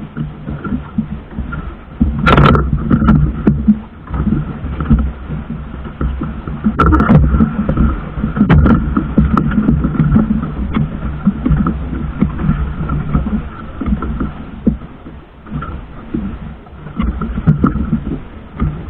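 Small outrigger fishing boat on open sea: water washing against the hull with a heavy, uneven low rumble and a faint steady tone, broken by a few sharp knocks about two, seven and nine seconds in.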